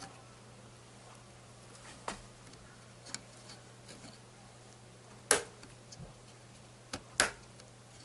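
Sharp plastic clicks and snaps as the last memory module is pressed into a server's DIMM slot and its retaining latches close. There are a few light clicks, then two louder snaps about five and seven seconds in, over a low steady hum.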